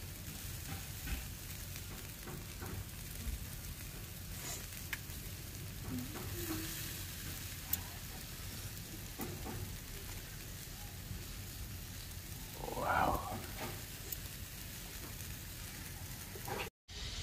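Marinated chicken tikka and fish pieces sizzling on a wire grill over hot charcoal, with a few sharp crackles and pops. A short louder noise breaks in about thirteen seconds in.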